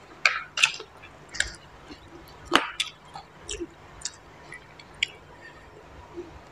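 Close-miked eating sounds: wet mouth smacks and chewing of spicy papaya salad and boiled freshwater snails, heard as a string of short sharp clicks and smacks, the loudest about two and a half seconds in.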